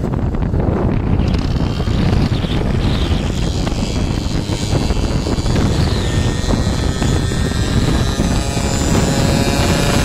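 Two-stroke Peugeot moped engine running under way, with wind rushing over the microphone; its pitch climbs a little near the end.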